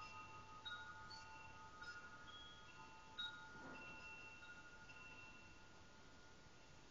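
Faint chiming: clear bell-like notes at scattered pitches, struck at irregular moments and each ringing on for a second or two, with a brief click about three seconds in.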